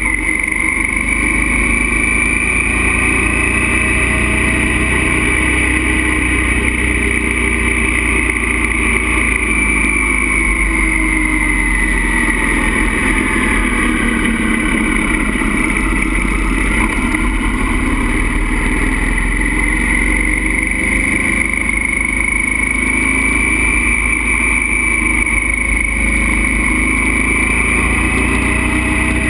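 Motorcycle engine running under steady riding with heavy wind rush, heard from the moving bike; the engine note rises and falls slowly as the throttle changes through a string of curves.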